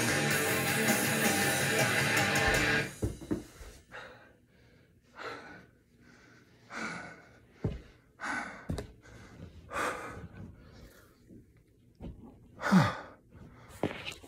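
Loud rock music with strummed electric guitar plays and cuts off abruptly about three seconds in. After it comes a series of heavy breaths about every one to two seconds, with a couple of short knocks between them.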